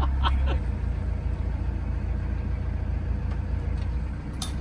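Narrowboat engine running steadily at low revs while the boat cruises, a low rumble.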